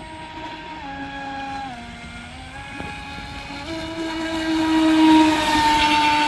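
Radio-controlled speedboat's motor running at speed: a steady pitched tone that drops in pitch as it eases off, then rises again about four seconds in. It is loudest, with a hiss of spray, as the boat sweeps past close by around five seconds in.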